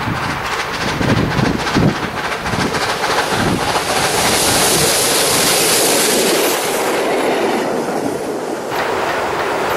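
Garden-scale model train, a red diesel locomotive with wagons, running along its outdoor track: a quick clicking rattle of wheels over the rails, with a high hiss for a few seconds in the middle.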